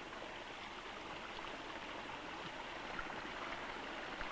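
A faint, steady rushing noise with a few soft ticks, and no voice.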